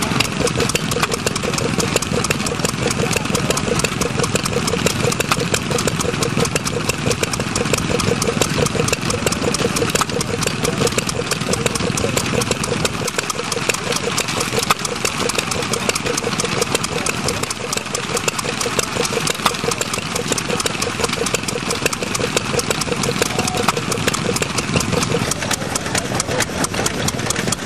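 Small air-cooled single-cylinder stationary engine running steadily with a fast, even firing beat. Near the end the sound changes as a red Associated stationary engine takes over.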